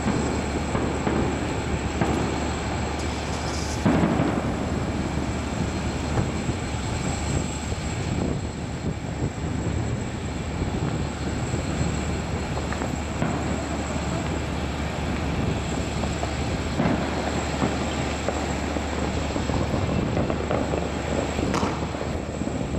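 Steady rumbling noise with a few sharp knocks, the loudest about four seconds in.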